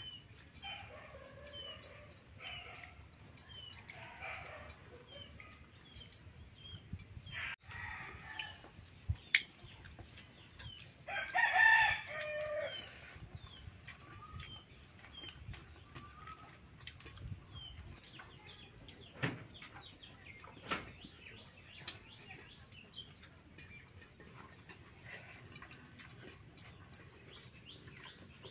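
A rooster crows once, loudly, about eleven seconds in, among chickens clucking and many small birds chirping. A few sharp knocks are also heard.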